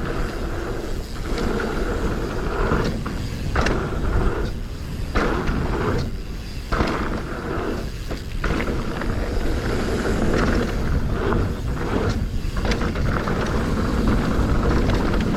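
Mountain bike riding down a dirt singletrack trail: a steady rushing noise from the ride, broken by frequent knocks and rattles as the bike goes over bumps.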